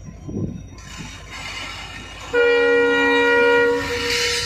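Diesel locomotive of a broad-gauge train sounding its horn once, a loud steady blast of about a second and a half starting about two seconds in, over the low rumble of the moving train.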